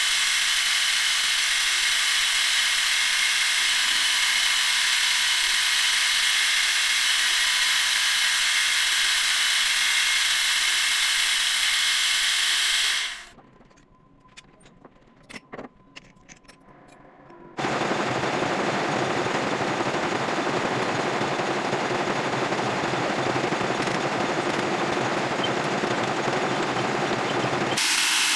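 Metal lathe machining steel, a steady cutting noise. It stops for a few seconds about halfway, leaving a few clicks, then starts again with a coarser, lower sound.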